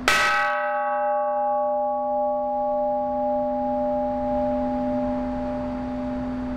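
Hanging bronze Buddhist temple bell struck once with a hand-held striker. A bright clang fades in about two seconds, leaving a long ringing of a low hum and two clear tones.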